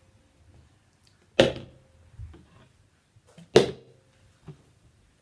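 A small plastic hand-gel bottle flipped and smacking down on a tabletop twice, about two seconds apart, each landing sharp with a brief ringing tone, followed by a lighter knock as it tips over or is picked up.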